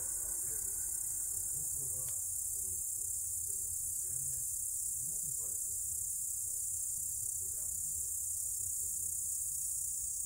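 Chorus of night-singing insects: a steady, dense high-pitched trilling that holds unchanged throughout.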